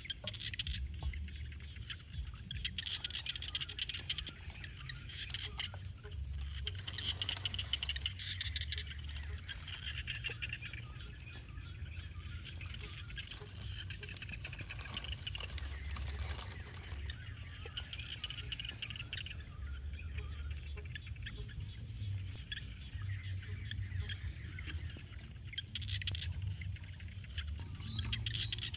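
Outdoor ambience with birds chirping on and off, over a low rumble and scattered small clicks and patters.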